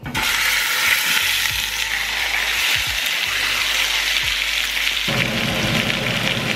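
Large chuck roast sizzling loudly in hot oil in a frying pan as it is laid in to sear; the sizzle starts suddenly and holds steady, turning fuller and lower about five seconds in.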